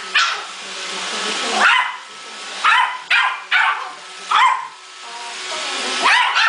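Small Yorkshire terrier barking repeatedly, about seven sharp yappy barks at uneven gaps. Under the barks runs the steady whir of an iRobot Roomba robot vacuum.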